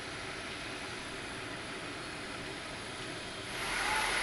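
Steady engine and machinery noise of vehicles and a large aircraft on an airfield apron. About three and a half seconds in it steps up louder, with a high hiss added.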